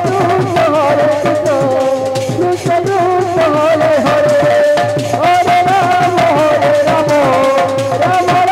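Devotional kirtan music: a sustained, ornamented melody line over fast, dense hand-drum and percussion strokes.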